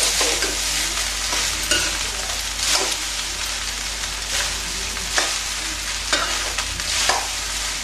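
Cooked rice being stirred and tossed in a hot steel kadhai with a metal spatula. The rice fries with a steady sizzle, and the spatula scrapes and knocks against the pan about once a second.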